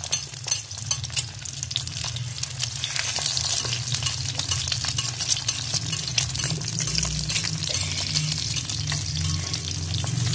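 Egg frying in hot oil on a black iron griddle: a steady sizzle with many small pops and crackles of spattering oil, growing denser after a few seconds.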